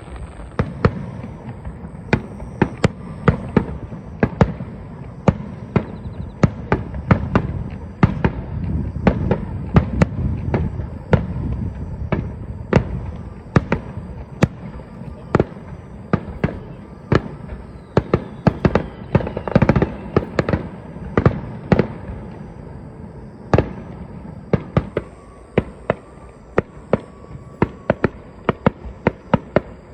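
Aerial fireworks bursting in a rapid, irregular barrage of sharp bangs, often several a second, over a continuous low rumble; the rumble is heaviest about a third of the way in and thins out in the last third, leaving separate cracks.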